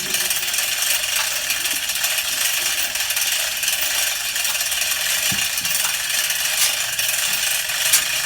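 A steady rattling clatter with a few sharp clicks.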